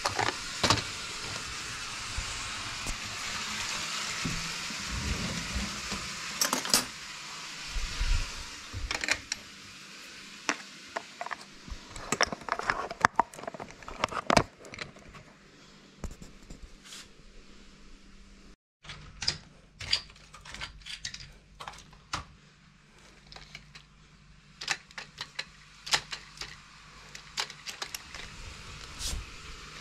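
Close handling noise: plastic yogurt cups and Lego train parts clicking, tapping and knocking as they are handled and set onto a Lego wagon. A steady hiss runs under the first several seconds.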